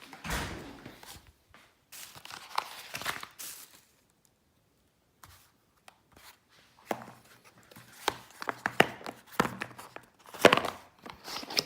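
Irregular rustling, crinkling and light clicks and knocks of objects being handled by hand, with a quiet pause about four seconds in and busier handling in the second half.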